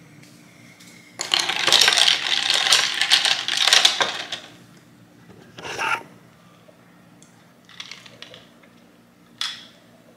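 Ice cubes clinking and rattling against a drinking glass as iced coffee is stirred with a straw, a dense run of clinks lasting about three seconds. A few single clinks follow later.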